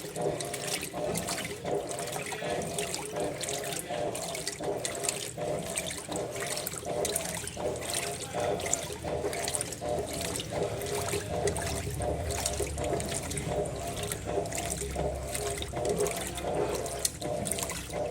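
Electrolux LTC15 top-load washing machine churning a full tub of water at its maximum level, the water sloshing in an even rhythm of about two surges a second.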